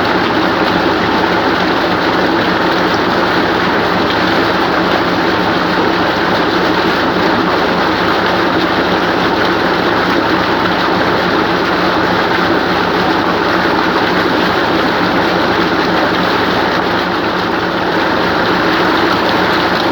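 Waterfall: falling water making a loud, steady rushing noise that holds even throughout.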